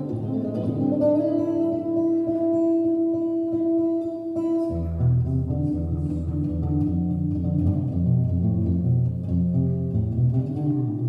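Archtop guitar playing an instrumental passage: a chord rings out and is held for the first few seconds, then about halfway through a steady low bass line starts beneath the chords.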